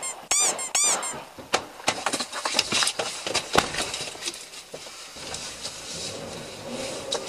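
Two short, loud squeaky cries in the first second, then a string of knocks and clatter. From about five seconds in, a steady vehicle noise grows louder as the police cruiser pulls away.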